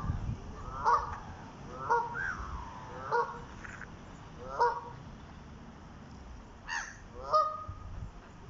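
Waterfowl calling: a run of short honking calls about once a second, with two louder calls near the end.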